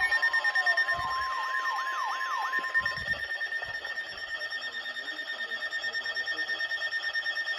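NOAA Weather Radio alert for a Special Marine Warning: the steady 1050 Hz warning alarm tone, which cuts off about three seconds in, with a wavering sweeping tone over it. Under both runs a steady high-pitched alert tone that pulses rapidly and evenly.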